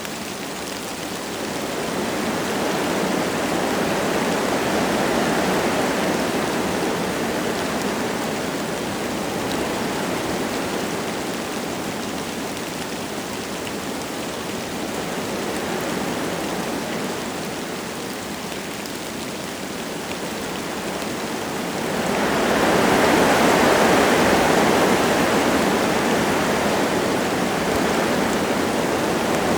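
Wind gusting through forest trees, with light rain falling. The rushing swells and eases in slow waves, and a stronger gust comes in about three quarters of the way through.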